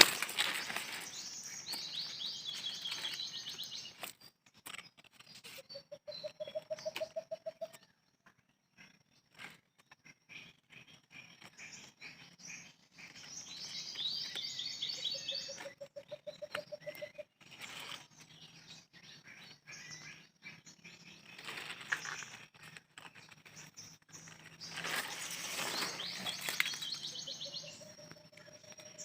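Wild birds calling in the open. Three times a quick, high chattering song is followed by a lower, rapid trill that rises slightly in pitch, with scattered faint clicks between.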